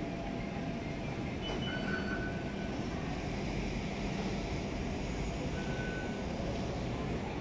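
Steady low rumble of a Taipei Metro train running through the station, with a few faint, brief high tones over it.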